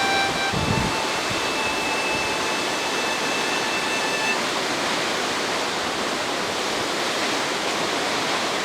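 Waterfall with a steady rush of falling water. A few faint held pitched notes sound over it and stop about four seconds in.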